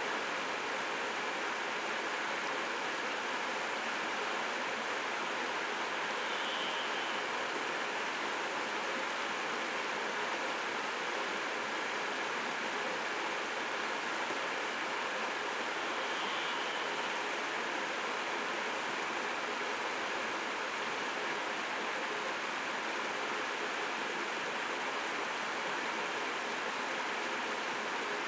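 Steady, even rushing of running water, as from a nearby stream, with no roaring from the stag.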